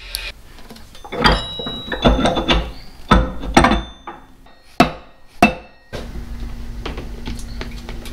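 Hammer knocks on the metal parts of a tractor transmission, about seven sharp, irregularly spaced strikes with brief metallic ringing. In the last two seconds there is a steady, quieter hum with a light hiss.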